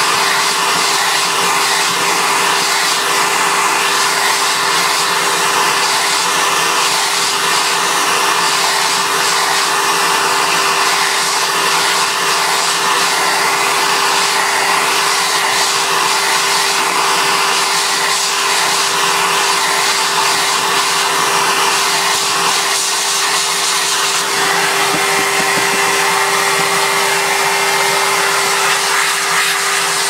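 Vacuum cleaner running steadily, a constant whine over the rush of air, with its crevice nozzle worked over a dusty pleated cartridge filter to suck the dirt out of the pleats.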